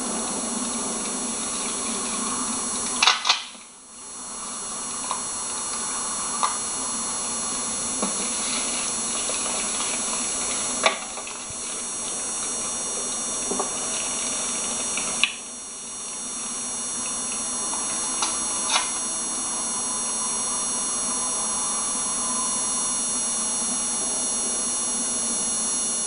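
A steady mechanical hum with a thin high whine, broken by a few sharp clicks or knocks; after two of them the sound drops away briefly.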